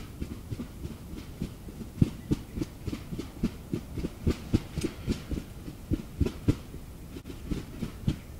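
Decapitated Merriam's turkey flopping, its wings beating the ground in a rapid run of dull thumps, about four a second.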